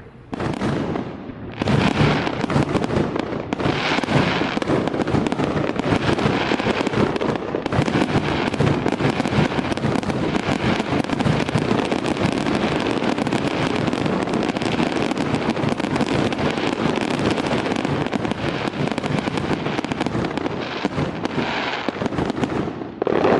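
A fireworks barrage: a dense, continuous run of bangs and crackles. It swells to full strength about a second and a half in and keeps going without a break.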